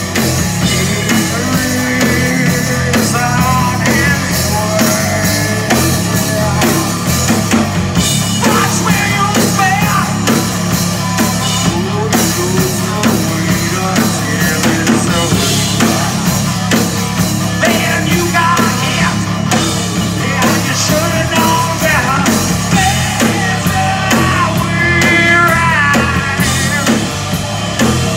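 Live rock band playing loud: distorted electric guitars, bass and drum kit, with a male lead singer coming in about two seconds in, heard from among the crowd in front of the stage.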